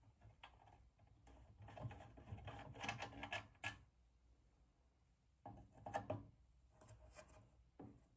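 Faint clicks and scraping of small brass fittings handled by hand on a toy steam engine's boiler as its filler is opened, in two short clusters.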